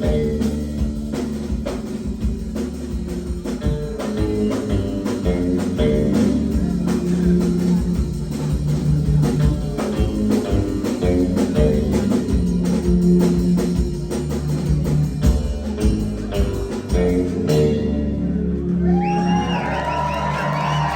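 Live band playing an instrumental passage with a driving drum beat and heavy bass. The band stops dead about 17 seconds in, and the crowd starts cheering.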